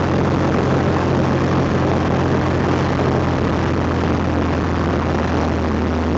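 Car driving at speed, heard inside the cabin: a steady drone of engine and road noise.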